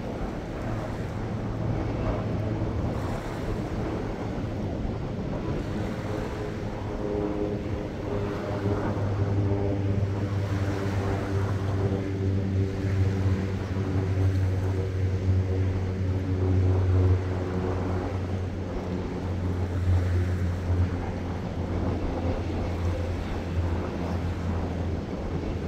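Small waves lapping and washing over a shallow reef shelf, with wind buffeting the microphone. Under it runs a steady low engine drone, with a pitched hum that comes in about a quarter of the way through and fades out past the middle.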